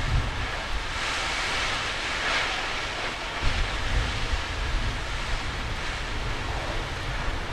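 Large garage fire roaring: a steady rushing hiss that swells about a second in, over a low fluttering rumble of wind on the microphone.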